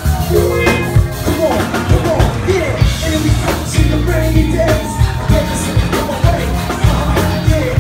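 Live band music: drum kit and electric bass playing a steady, heavy groove, with a singer's voice over it at times.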